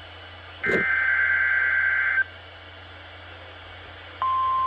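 NOAA Weather Radio SAME data burst: a harsh, warbling digital buzz lasting about a second and a half, starting under a second in, followed by radio hiss. About four seconds in, the steady single-pitch 1050 Hz warning alarm tone starts and holds. Together they are the tones of a required weekly test of the weather radio system.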